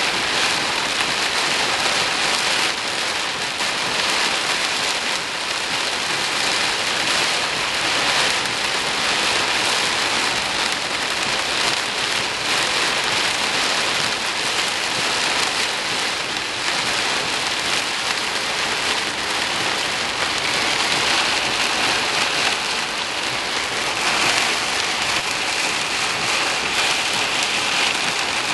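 Steady rain falling: a dense, even hiss with no breaks.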